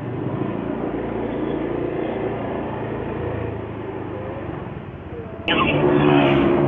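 Motorcycle engine running with road noise while riding. About five and a half seconds in there is a sharp click, and the sound suddenly gets louder with a stronger engine note.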